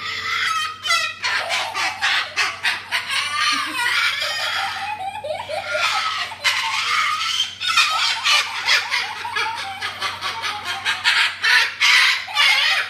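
White cockatoo calling loudly in a long, almost unbroken run of harsh screeches and squawks.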